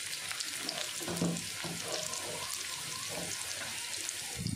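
Chopped red onions sizzling in hot oil in a pan, a steady hiss.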